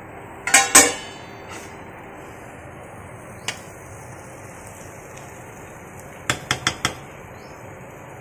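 Metal cookware clanking as the lid comes off a pot of steaming rice: two loud clanks just under a second in, a single light tick a few seconds later, and four quick metallic clinks near the end.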